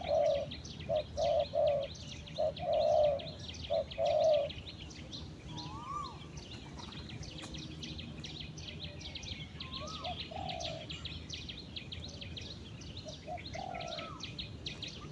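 Spotted doves cooing: a run of short low coos in the first four seconds, then a few single coos near the middle and end, over a constant high, rapid chirping in the background.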